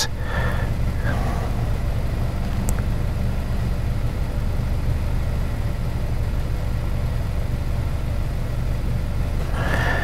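2018 Honda Accord's 1.5-litre turbocharged four-cylinder engine idling steadily, a low even hum. It is the engine being diagnosed for a cylinder 4 misfire (code P0304).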